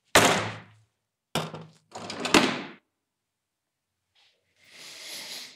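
A loud, sharp thump with a short fading tail. About a second later come a few more knocks and handling sounds, and near the end a soft hiss swells and fades.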